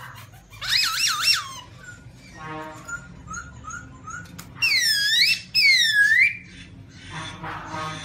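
Black-throated laughingthrush singing loud, varied whistled phrases. A quick run of three looping whistles comes about a second in, then softer short notes and a buzzy note. Two loud swooping whistles follow around the middle, and more buzzy notes near the end.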